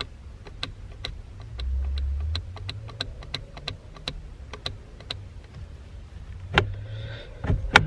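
Horn button on a newly fitted aftermarket steering wheel clicking as it is pressed over and over, about three clicks a second, with no horn sounding because the button is not yet wired. A few louder knocks follow near the end.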